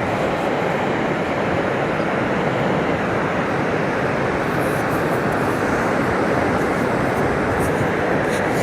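Ocean surf making a steady, even rush with no breaks or separate splashes.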